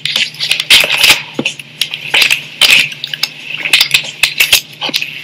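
Handling noise from a camera being picked up and set in place: an irregular run of clicks, knocks and rustles against the microphone, over a steady low hum.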